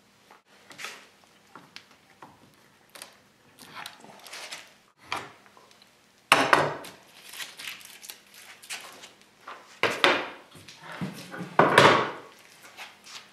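Small wooden pieces handled on a workbench: irregular knocks and short scraping sounds, the loudest about six, ten and twelve seconds in.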